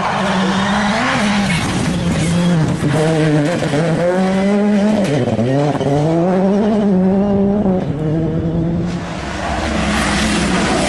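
Citroën C3 Rally2 car's engine at full throttle on a gravel stage, its pitch climbing and dropping again and again as the driver shifts and lifts, with gravel hissing under sliding tyres. About nine seconds in it gives way to another rally car running hard.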